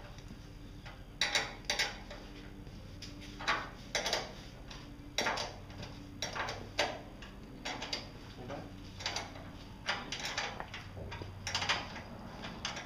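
Hand ratchet working the hood screws, clicking in short irregular strokes.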